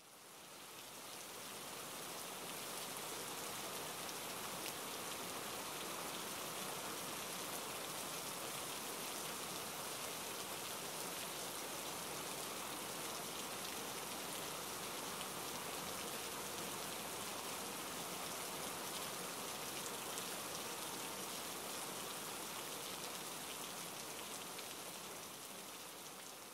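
Steady rain falling on hard ground, an even hiss with no breaks, fading in over the first couple of seconds.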